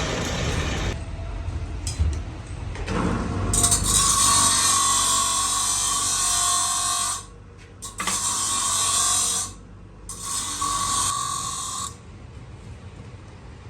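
Metal being ground: a loud, hissing grind with a ringing tone, coming in three stretches that each stop abruptly, over a low machine hum.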